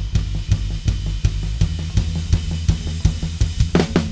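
Drum kit playing a steady groove with bass guitar under it, the kick drum's beater click shaped by a high-band EQ boost being swept from about 2.7 kHz up to about 4 kHz. A louder cymbal crash rings out near the end.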